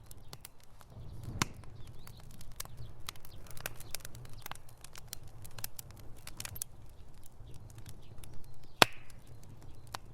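Wood fire in a fireplace crackling, with many small pops over a low rumble. A louder pop comes about a second and a half in, and the loudest, sharpest one comes near the end.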